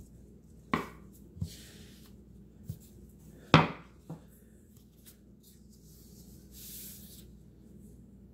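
Gloved hands rubbing and pressing fondant into a silicone mould, with soft rubbing swishes and a few knocks on a wooden board, the loudest about three and a half seconds in. A low steady hum runs underneath.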